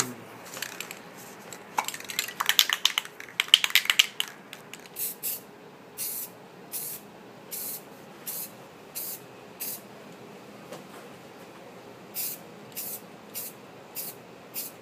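An aerosol can of metallic spray paint, first rattled in quick clicks for about two seconds, then sprayed in a string of short hissing bursts about every 0.7 seconds, with a pause of a couple of seconds before the bursts resume.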